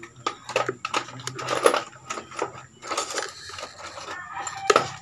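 Irregular clicks and crackles as a screwdriver pries a heat-softened plastic motorcycle headlight lens away from its housing and the glued seam gives way bit by bit.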